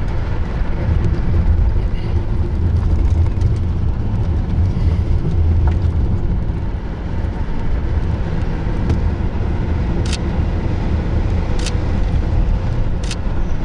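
Steady low rumble of a car driving, heard from inside the cabin, with three sharp ticks in the last few seconds.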